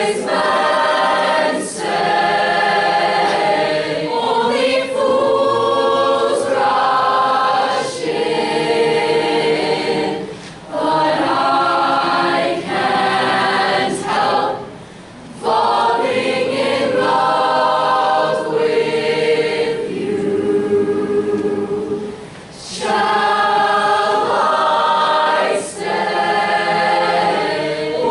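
Mixed-voice choir of teenagers singing unaccompanied in full harmony, in long held phrases with brief breaks for breath between them.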